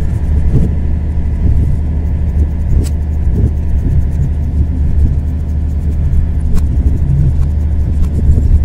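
Locomotive running along the track, heard from the cab: a steady low rumble of engine and wheels on rail, with a couple of brief sharp clicks.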